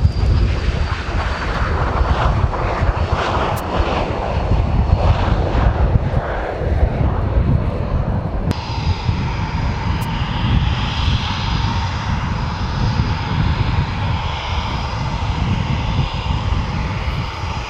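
Panavia Tornado jet engines running loud as the jet speeds along the runway. About halfway through this abruptly gives way to a Eurofighter Typhoon's jet engines running steadily with a high whine as it stands on the apron.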